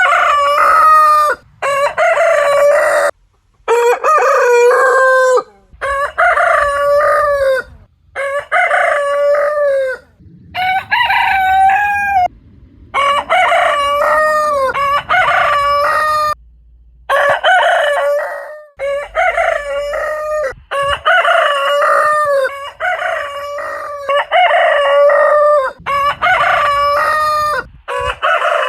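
Roosters crowing one after another, a run of about a dozen cock-a-doodle-doos each lasting a second or two, with short gaps between them.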